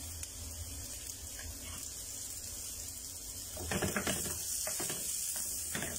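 Aromatics sizzling steadily in a frying pan, with a cooking utensil clattering against the pan in a short cluster about four seconds in and once more near the end.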